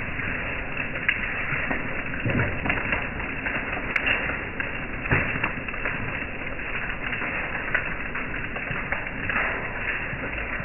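Hail and rain falling on a wet deck: a steady hiss of rain with irregular sharp ticks of hailstones striking the boards.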